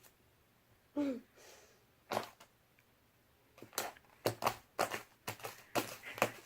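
Homemade glue slime squeezed and kneaded by hand for a click test: a single click, then from about halfway through a run of irregular sharp clicks and pops as air pockets in the slime burst.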